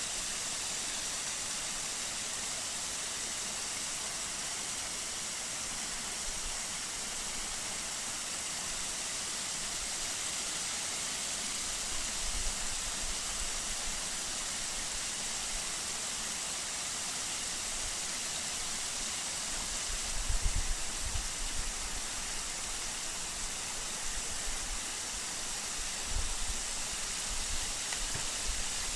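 Steady, even hiss with no clear events, broken by a few brief low rumbles like wind buffeting the microphone about twelve, twenty and twenty-six seconds in.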